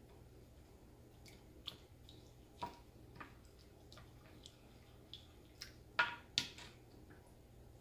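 A wooden spoon stirring rinsed rice into cream of chicken and cream of mushroom soup in a glass baking dish: quiet wet squishing with irregular light taps of the spoon against the glass, the two loudest coming close together about six seconds in.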